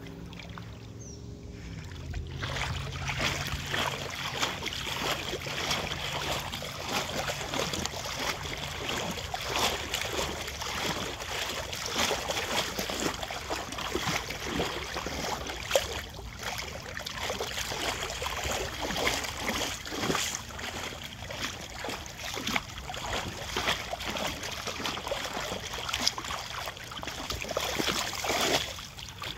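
River water splashing and sloshing against an inflatable boat moving along a shallow river, a busy, irregular watery noise that swells up about two seconds in and drops away just before the end.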